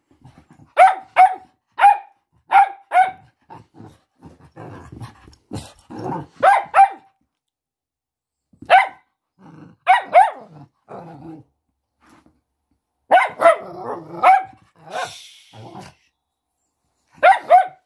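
Cavalier King Charles spaniel barking: short, sharp, high barks in runs of one to five, with pauses of a few seconds between the runs.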